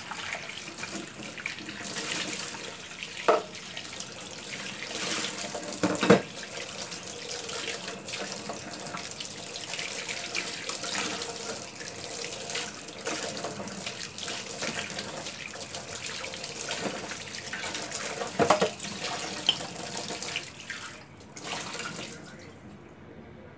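Kitchen tap running into a stainless steel sink while blanched chicken bones are rinsed under it, with a few sharp knocks against the metal, the loudest about six seconds in. The running water dies down near the end.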